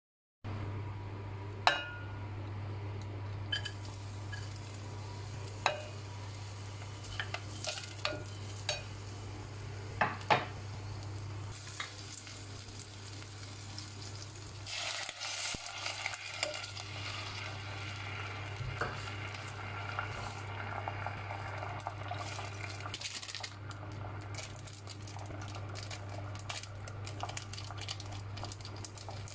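Sliced onion, chilli and garlic frying in oil in a glass pot: a hiss of sizzling that swells about twelve seconds in and gives way to fine crackling for the last few seconds. Before that come a few sharp knocks of utensils and ingredients on the pot. A steady low hum runs underneath throughout.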